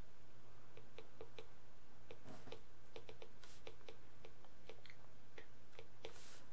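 Stylus tapping and scratching on a tablet while handwriting: irregular light clicks, several a second, with a few brief scrapes, over a steady low hum.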